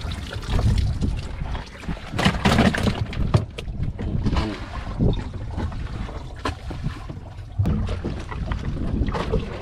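Wind rumbling on the microphone aboard a small boat at sea, with knocks and clatter as fish are tipped from a plastic basket into an icebox, thickest about two to three seconds in.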